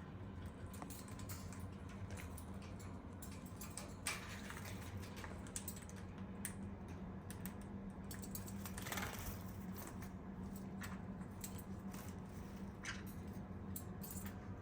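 Green-cheeked conure bathing in its water bowl: irregular light splashes, taps and drips, with a few louder splashes. A steady low hum runs underneath.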